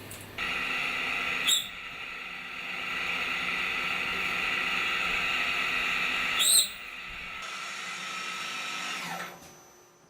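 CNC turning center machining metal, a steady high whine with a hiss. Two sharp clicks come about five seconds apart, and the sound fades out near the end.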